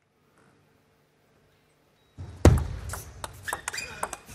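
Near silence for about two seconds, then a heavy thump, followed by a quick run of sharp clicks of a table tennis ball struck by rackets and bouncing on the table as a rally gets under way.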